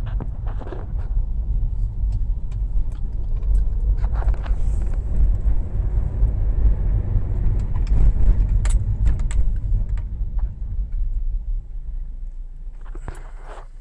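Car cabin noise while driving: a steady low rumble of engine and road, with scattered small clicks and rattles, growing quieter near the end.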